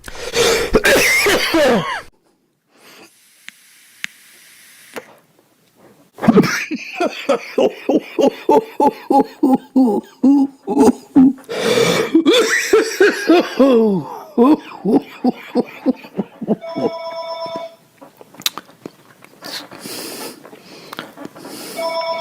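A man coughing hard: one harsh cough, then a long fit of rapid hacking coughs with hoarse, pitched gasps between them. An electronic ringing tone of a few steady pitches sounds twice near the end.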